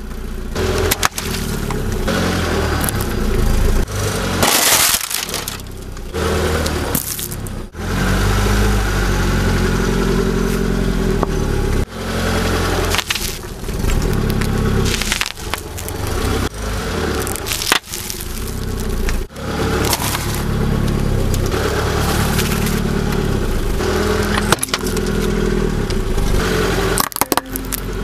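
A car's tyre rolling over and crushing objects in a string of short clips, with cracking and crunching over the running engine. The sound changes abruptly every few seconds as one clip cuts to the next.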